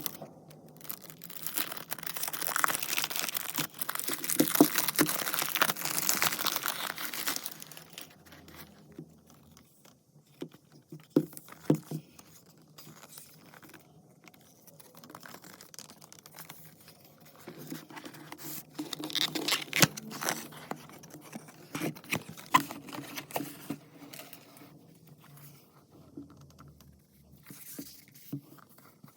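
Perfume packaging being unboxed by hand: wrapping crinkles and tears for several seconds near the start, then quieter handling of the box with a few sharp taps and knocks and another short burst of crinkling.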